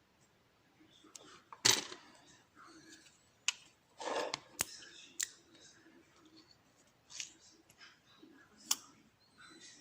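Irregular small clicks and clinks of a pin-tumbler lock being taken apart by hand with gutting tools, with a few sharper clicks and a louder rustle of handling about two and four seconds in.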